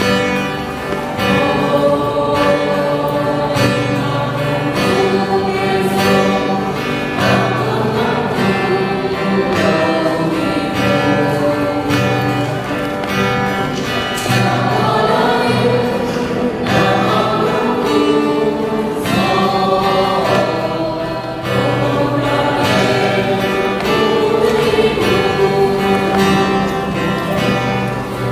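Mixed choir of men and women singing a gospel hymn in unison phrases, with guitar accompaniment.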